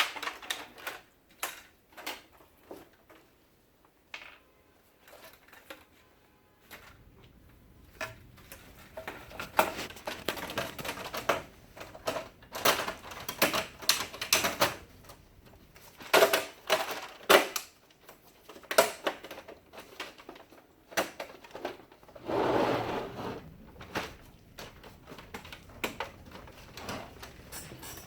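Plastic printer parts and covers being handled and fitted, giving irregular clicks, knocks and clatter, with a longer scrape a little past two-thirds of the way through.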